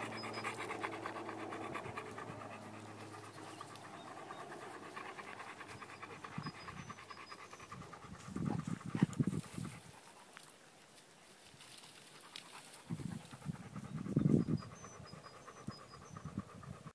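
Bernese mountain dog panting in quick, even breaths. Two short spells of low thumping, about halfway through and again near the end, are the loudest sounds.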